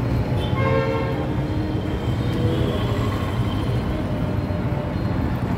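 A steady low vehicle engine rumble with a horn sounding briefly about half a second in, and fainter horn tones around the middle.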